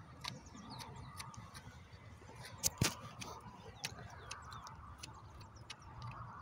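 A hoof pick scraping and clicking against a horse's hoof as packed mud and dirt are dug out of the sole, in irregular sharp scrapes with one louder click about three seconds in.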